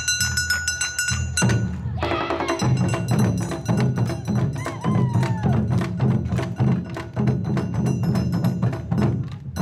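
Japanese festival drum troupe playing live: large barrel drums slung from shoulder straps and beaten with sticks in a fast, even rhythm, with sharp stick clicks and occasional shouted calls from the dancers.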